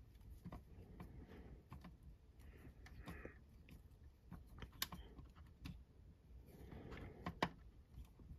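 Faint scattered clicks and creaks of a small screwdriver driving a screw into the plastic wheel mount of a toy vehicle, cutting its own thread, with two sharper clicks about five and seven seconds in.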